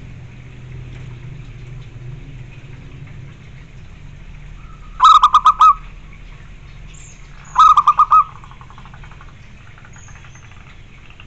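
Zebra dove (perkutut) cooing: two loud bursts of rapid staccato notes, four or five notes each, about five and seven and a half seconds in, with a fainter trailing run of notes after the second burst.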